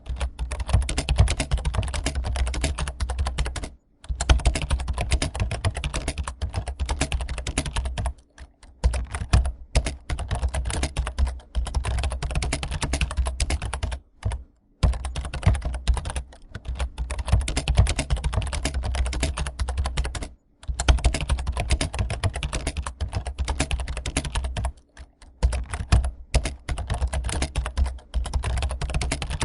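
Fast, continuous typing on a computer keyboard: a dense patter of keystrokes with a dull low thud under them. It breaks off for a moment several times, roughly every four to six seconds.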